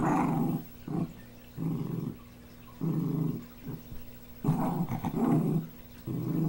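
Small dog growling in short rough bursts, about one a second, with a longer, louder growl about two-thirds of the way through: a warning growl at a puppy crowding it.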